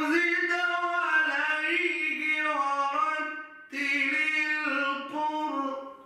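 A man reciting the Quran in melodic tajweed style, drawing out long ornamented notes. There are two sung phrases, with a brief breath about halfway through.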